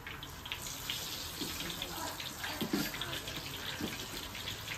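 Masala-coated fish pieces frying in hot oil in a black iron kadhai: a steady crackling sizzle that thickens about half a second in.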